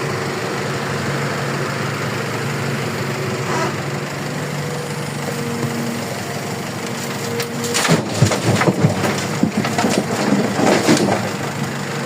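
Excavator engine running steadily, then about two-thirds of the way through a few seconds of loud clattering and thudding as a bucketload of material drops into a mini dump truck's bed.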